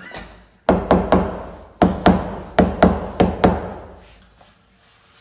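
Hand laminate roller being worked hard over a laminate sheet on a flat door, giving a quick run of about nine sharp knocks in about three seconds, starting about half a second in.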